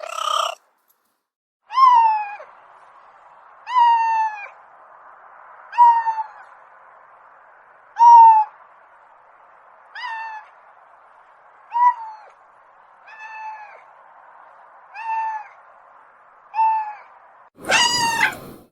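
A cat mewing: short, high mews that fall in pitch, about one every two seconds, over a steady hiss. A louder, longer meow comes near the end.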